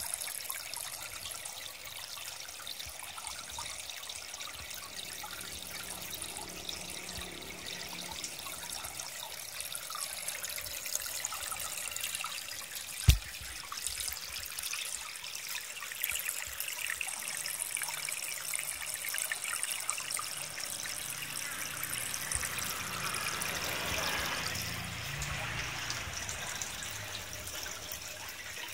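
Water trickling and splashing steadily into a fish pond, a little stronger towards the end. A single sharp click about halfway through.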